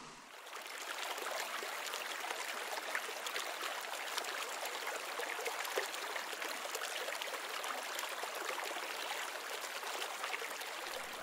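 Mountain river flowing steadily, a constant babbling rush of water.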